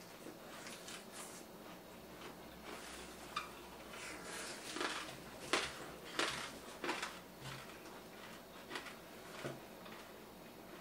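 Close-miked eating sounds: chewing and wet mouth smacks, with occasional light clicks of chopsticks and dishes. A cluster of louder smacks comes between about four and seven seconds in.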